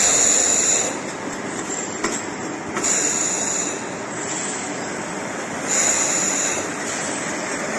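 Rotary vertical ultrasonic vial and ampoule washing machine running, a steady mechanical clatter with a loud hissing spray burst about every three seconds, three in all.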